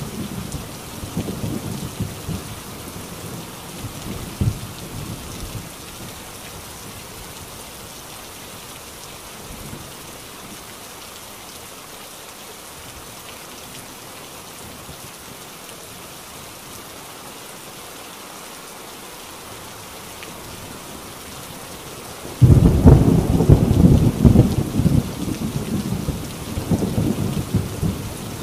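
Heavy rain drumming on a corrugated tin roof, a steady hiss, with thunder. A rumble dies away over the first few seconds, then a sudden loud thunderclap breaks in about three-quarters of the way through and keeps rumbling.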